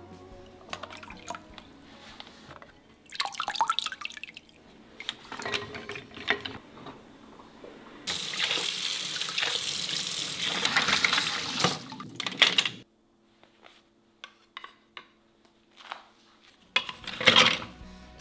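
Kitchen tap running in a steady rush over wooden utensils in a stainless steel sink as they are rinsed. The water stops abruptly after about five seconds. Before it come intermittent splashes and pouring, and near the end there are a few faint knocks and one brief loud burst of noise.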